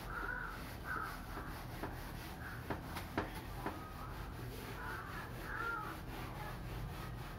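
Hand-held whiteboard eraser rubbed back and forth across a whiteboard in scrubbing strokes. A few light knocks come near the middle.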